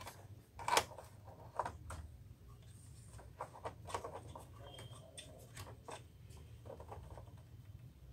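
Light clicks and rustles of hands handling the plastic parts and carriage of an opened Epson inkjet printer, coming irregularly, with the sharpest click about a second in, over a steady low hum.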